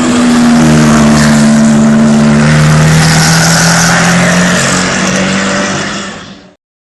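Straight-eight engine of a replica Bugatti Type 35 running loud, its note sinking slightly in pitch, then fading quickly and cutting off about six and a half seconds in.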